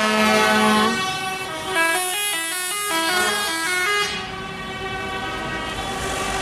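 Scania truck's air horns: one held blast until about a second in, then a musical horn playing a quick run of notes stepping up and down in pitch for about two seconds.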